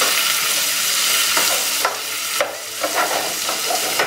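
Diced red potatoes sizzling steadily in rendered bacon fat over high heat, while a spatula stirs through them, scraping and knocking against the pan a few times.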